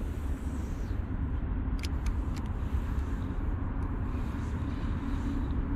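Steady low rumble of road traffic, with a few faint clicks about two seconds in.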